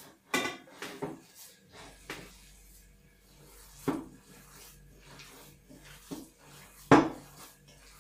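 Hands kneading minced beef and chicken mixed with rice in an enamel bowl: irregular slaps and rubs, the loudest about seven seconds in.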